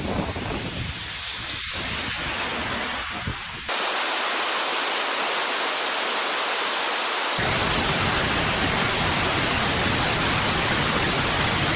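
Steady, loud hiss of heavy rain and storm noise. It changes abruptly about 4 seconds and again about 7 seconds in, where the clips cut.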